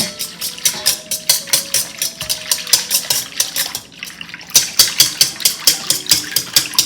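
A whisk beating liquid cake batter of water, oil and eggs in a bowl, the wires clicking against the bowl about five times a second, with a short pause a little before halfway through.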